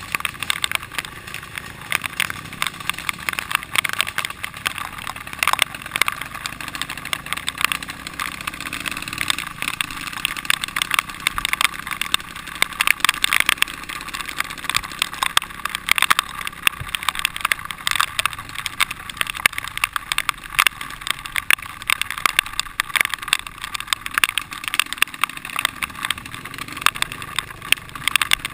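Dirt bike engine running while riding a muddy trail, heard from a helmet-mounted camera, with a dense, irregular crackle over it.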